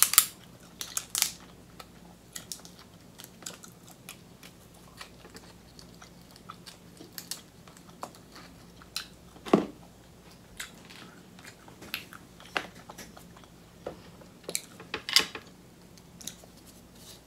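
Close-miked chewing of king crab meat, with scattered sharp clicks and cracks as the crab leg shell is pulled apart by hand; one louder crack about halfway through.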